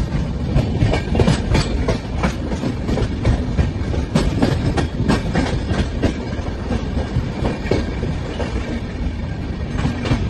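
Passenger train running over rail joints and pointwork: an irregular clatter of wheel clicks and knocks over a steady rumble, heard from an open coach doorway.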